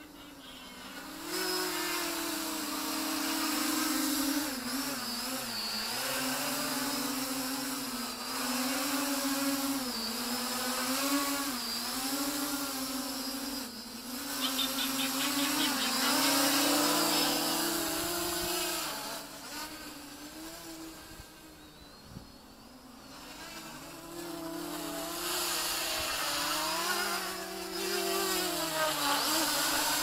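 450-size quadcopter's electric motors and propellers whirring, the pitch rising and falling as the throttle changes. It drops off for a few seconds about two-thirds of the way through, then builds again.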